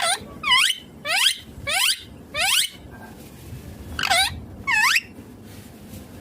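Indian ringneck parrot (rose-ringed parakeet) giving a run of about seven short, shrill calls, most sweeping up in pitch, with a pause of a second or so in the middle.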